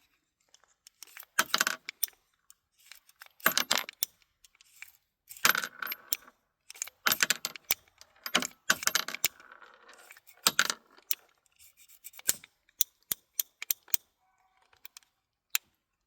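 Heritage Rough Rider .22 LR single-action revolver being handled: sharp metallic clicks and short clinking rattles come in bursts, then a few spaced single clicks near the end.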